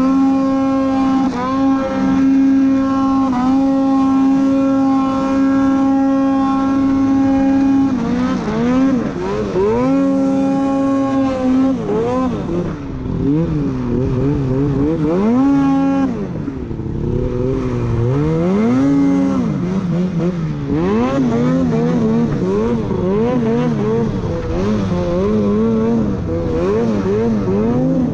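Two-stroke mountain snowmobile engine under throttle in deep powder. It holds a steady high rev for the first eight seconds, then the revs rise and fall repeatedly as the throttle is worked through the snow.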